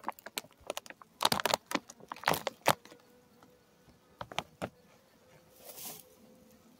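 Honeybees buzzing faintly around a hive, with a quick run of sharp crackling clicks in the first three seconds and a short hiss about six seconds in.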